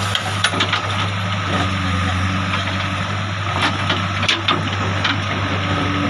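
JCB 3DX backhoe loader's diesel engine running steadily while the backhoe digs, with scattered short knocks and scrapes of the bucket working the soil.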